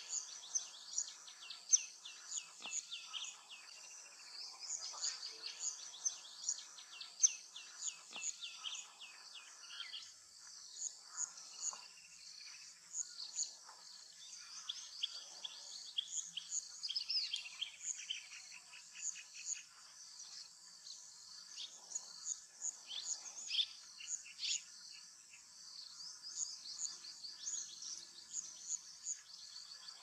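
Busy chorus of small birds chirping: many short, high notes, often in quick runs, with no let-up.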